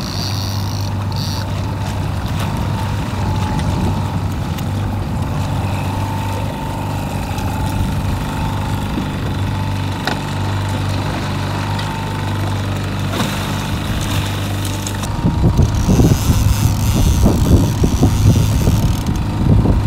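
Boat engine running steadily with a low hum. About fifteen seconds in, a louder, uneven low rumble joins it.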